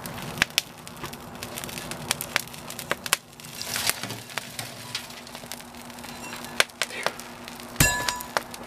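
Coal forge fire crackling and popping with many irregular sharp snaps as rain-wet coal and coke catch light, over a steady low hum of the forge's air blower. A louder knock comes near the end.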